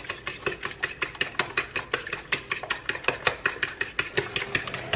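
Eggs being beaten in a bowl with a fork, the fork clicking rapidly against the side of the bowl at about eight strokes a second.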